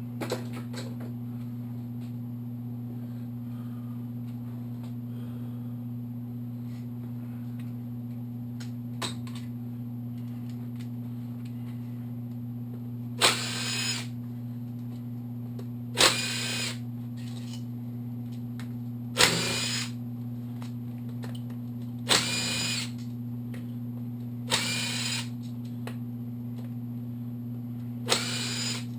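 Small cordless impact driver spinning out engine cover bolts one after another: six short whining bursts a few seconds apart, each rising in pitch. A steady low hum runs underneath.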